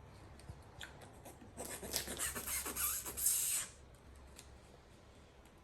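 Paper and sticky tape being handled: a rasping rub of about two seconds as tape is wrapped around a paper craft, with a few faint ticks before and after.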